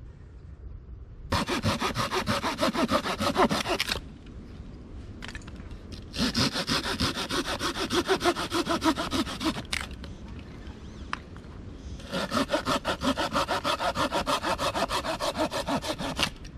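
Small hand saw cutting through a branch in three bouts of quick back-and-forth strokes, with short pauses between them.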